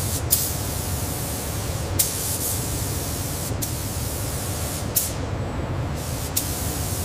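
Steady spraying hiss from a robotic arm's spray nozzle, with a low rumble underneath and short breaks or clicks every second or two.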